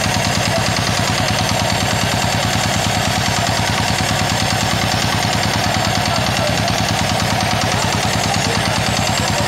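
A boat's engine running at idle: a steady, rapid, even chugging that does not change.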